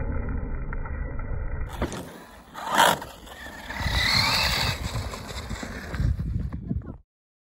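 ARRMA 6S brushless RC car driving over rough ground: rumbling tyre and chassis noise, a loud scrape or impact about three seconds in, then the motor whining up in pitch as it accelerates. The sound cuts off abruptly near the end.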